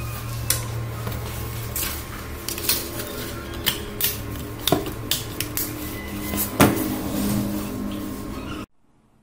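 Plastic back cover of a Samsung Galaxy J1 phone being pressed onto the body, its clips snapping into place in a series of sharp, irregular clicks over a steady low hum. The sound cuts off suddenly near the end.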